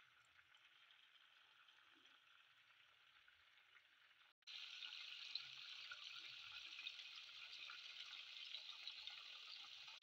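Faint, steady hiss-like noise with no distinct events. It cuts out for an instant about four seconds in and comes back louder.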